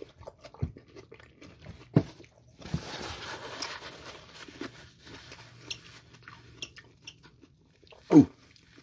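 Someone chewing a fresh hot pepper pod filled with hot sauce, with scattered crunches and wet mouth clicks. A breathy hiss comes about three seconds in, and there is a short vocal sound near the end.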